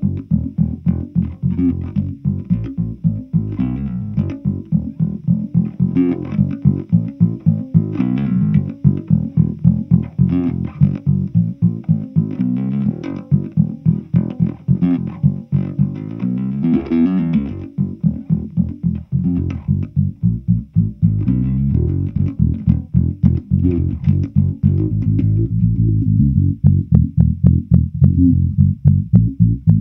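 Fender Precision Bass played through an EarthQuaker Devices Spatial Delivery envelope filter and a Fender Bassman amp and 4x10 cabinet: a busy line of short plucked notes, several a second, each note opening into a wah-like filter sweep.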